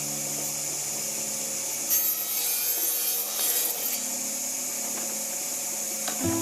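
Steady rasping hiss of a hand tool scraping across hardwood.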